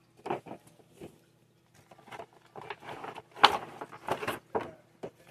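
Cardboard action-figure box with a clear plastic window being handled: scattered taps, scrapes and plastic crinkles, the loudest about three and a half seconds in.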